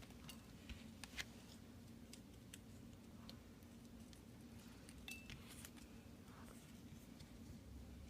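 Faint, scattered ticks and light crinkles of small paper slips being folded and creased by hand, over a low steady room hum.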